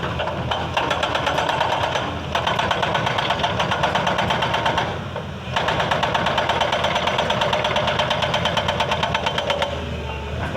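Excavator-mounted hydraulic breaker hammering rapidly in three spells, over the steady running of the excavator's diesel engine; the hammering pauses briefly about two seconds in and again around five seconds.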